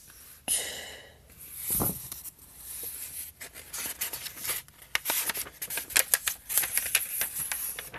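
Paper handling: the pages of a book being flipped and riffled, giving papery rustles and a dense run of crackles, with a dull thump about two seconds in.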